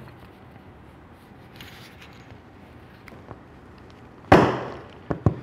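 Crimped contacts being pressed by hand into a red Anderson Powerpole connector housing: one loud sharp knock about four seconds in, then two quick lighter clicks.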